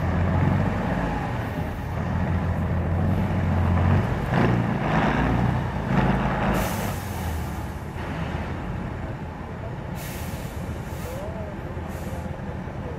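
Diesel engine of a multi-axle trial truck labouring under load off-road, rising in revs about four to six seconds in, then easing off and running quieter. Several short hisses of air, typical of air-brake releases, come from about six seconds in.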